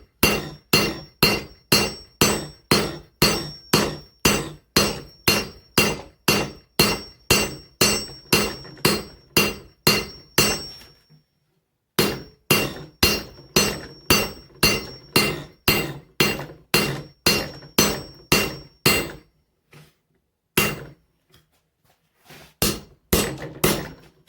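Hand hammer striking hot mild steel on an anvil, about two to three blows a second, each with a bright metallic ring, drawing down the centre of a flat bar. The hammering pauses briefly about 11 seconds in, resumes until a few seconds from the end, then gives way to a few scattered blows.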